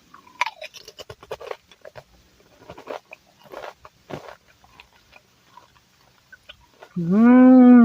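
A Doritos tortilla chip bitten and chewed, a run of crisp crunches over the first few seconds that thins out to faint chewing. About seven seconds in comes a loud drawn-out hummed "mmm", its pitch rising then falling.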